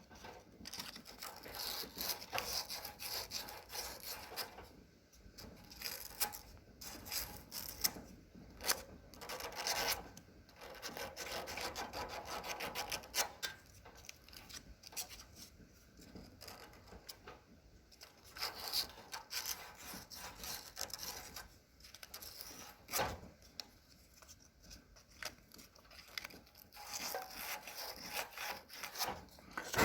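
Small piece of sandpaper rubbed by hand over the black tip of a propane water heater's thermocouple in irregular scratchy strokes with short pauses, gently cleaning off the deposits.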